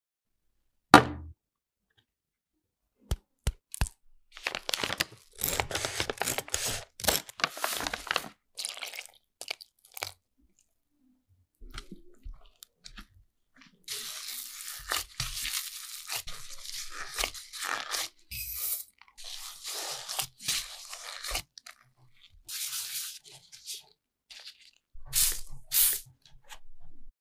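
Close-miked sounds of making mochi bun dough: a gloved hand stirring and kneading soft dough in a glass bowl, in long irregular stretches of noisy handling. A single sharp click comes about a second in, and a couple of short spray-bottle squirts come near the end as the dough balls are misted with water.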